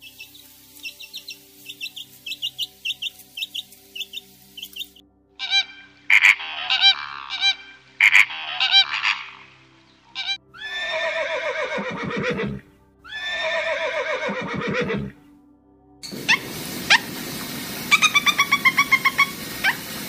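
A series of bird calls. First a young wren chirps rapidly in high notes. After other mixed calls and clicks come two long honking flamingo calls, and near the end a lovebird gives quick chirps over a hiss.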